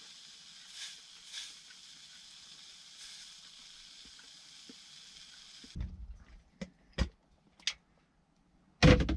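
Horse mackerel sizzling in a frying pan: a steady hiss that cuts off suddenly a little past halfway. Then a few short knocks of cookware, and a loud clatter right at the end.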